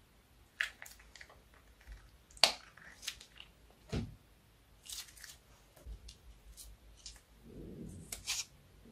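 Scattered sharp clicks and crackles from slime being squeezed out of a plastic piping bag and the bag being handled. Near the end, scissors snip the tip off a plastic piping bag.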